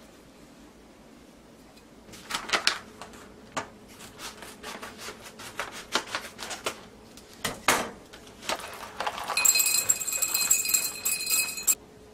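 A foil coffee-bean bag crinkling as it is handled and opened, then coffee beans poured into a glass bottle: a dense rattle of beans against glass with a ringing note, lasting about two seconds near the end and stopping abruptly.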